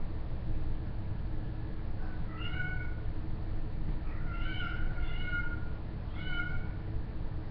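A pet's short, high-pitched calls, about four or five of them in three clusters, over a steady low electrical hum from the recording.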